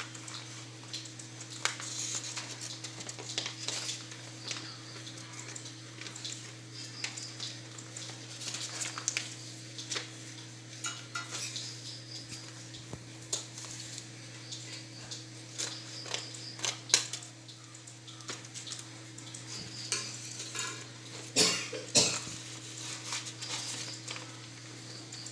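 Brown wrapping paper rustling and crinkling as it is folded and creased around a book, with scattered sharp clicks and taps of handling, a few louder snaps near the end. A steady low hum runs underneath.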